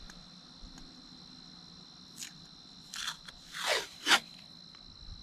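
Tape being pulled off the roll and torn in four short rips between about two and four seconds in, the third sweeping down in pitch and the last the loudest, over a steady high chirring of crickets.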